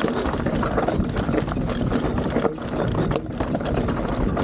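Mountain bike riding fast down a rocky dirt trail: tyres rolling over stones and loose dirt, and the bike rattling and knocking over the bumps, under a constant rushing noise.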